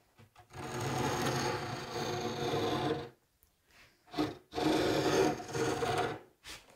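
A marking gauge's cutter dragged along the edge of a wooden panel, scribing a baseline for half-blind dovetails. There are two long scratchy strokes, each two to three seconds long, with a short pause and a few light ticks between them.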